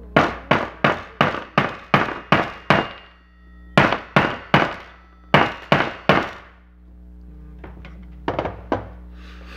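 Small hammer tapping a gear down onto the geared shaft of an animatronic pumpkin dog toy, in quick runs of taps about three a second with short pauses between, and a few lighter taps near the end.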